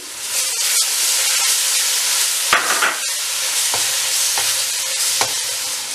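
Green chili, ginger and garlic paste sizzling steadily in hot ghee as it is stirred into fried onions with a silicone spatula, with a few short clicks of the spatula against the pan.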